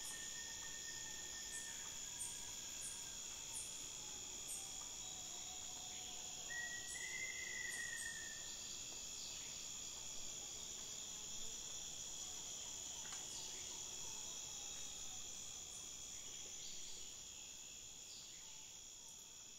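Steady chorus of insects, a continuous high-pitched trilling drone, with one drawn-out whistled note about seven seconds in; the chorus slowly fades out near the end.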